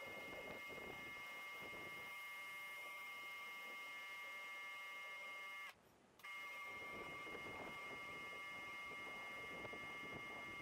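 Faint, steady electrical whine made of several fixed high tones over a light hiss, cutting out briefly about six seconds in.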